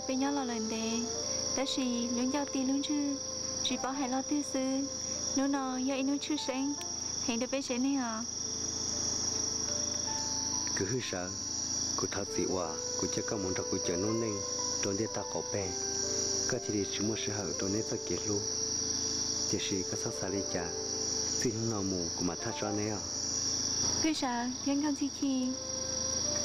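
Crickets chirring steadily, one unbroken high trill running under the voices.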